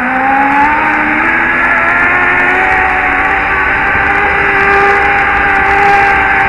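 Zipline trolley pulleys whining along the steel cable, the pitch rising over the first second or so and then holding steady, over a rush of wind on the microphone.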